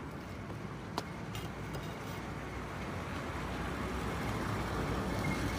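A single sharp knock about a second in, as a brick is set down on a stack of bricks, over a steady low rumbling noise that slowly grows louder.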